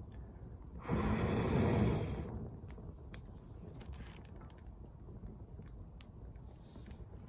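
Wood campfire crackling, with scattered sharp pops and snaps. About a second in there is a louder breathy rush lasting about a second.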